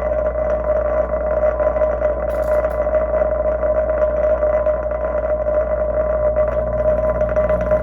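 A 10-inch home-theater subwoofer driven hard by its amplifier, giving a loud, steady drone with a steady higher-pitched tone over it. The amp is powered through a Variac turned up to roughly 25–40 volts, and the cone is moving a lot.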